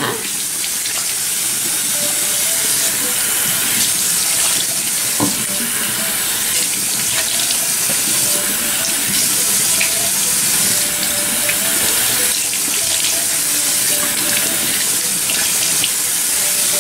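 Tap water running steadily into a bathroom sink and splashing as foaming face wash is rinsed off by hand. A phone rings faintly behind it, short repeating tones from about two seconds in.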